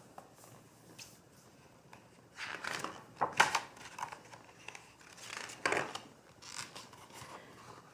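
Pages of a picture book being turned and handled: a series of short papery rustles and flaps, the sharpest about three and a half seconds in and again near six seconds.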